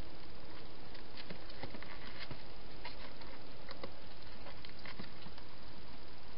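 Wild hedgehog feeding and moving about inside a plastic feeding box: small irregular clicks and crackles, a few a second, over a steady hiss.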